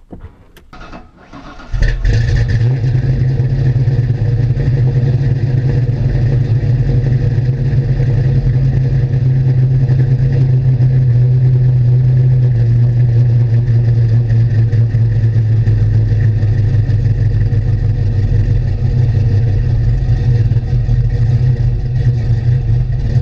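A 1988 Fox-body Mustang's modified 5.0 V8 (GT40 heads, Edelbrock intake, bored .030 over) starts up suddenly about two seconds in, after a few faint clicks. It then idles loudly and steadily, and the idle settles slightly lower about halfway through.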